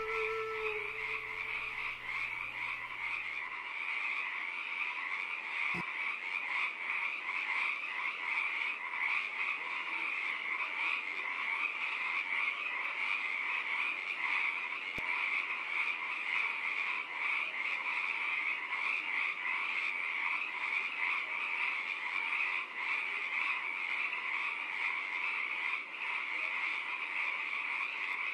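A dense, steady chorus of many small animals calling at once, a continuous high shimmering chirr that does not let up.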